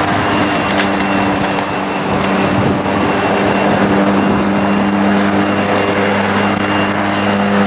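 Walk-behind lawn mower running steadily as it is pushed along, a loud, even motor hum.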